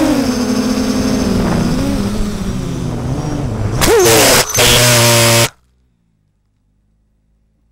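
FPV quadcopter's Emax 2208 2000KV brushless motors with 6045 propellers whining, the pitch sliding down as the throttle comes off. About four seconds in the quad crashes into tall grass: a loud, rough burst of motor noise and props striking the grass, which cuts off suddenly about a second and a half later as the motors stop, leaving near silence.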